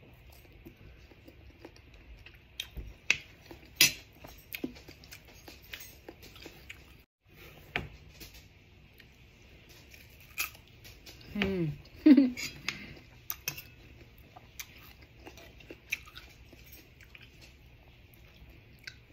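A person chewing crisp slices of unripe green mango with irregular crunches and mouth clicks, and a metal spoon clinking and scraping as it scoops shrimp paste. A brief vocal sound comes about halfway through.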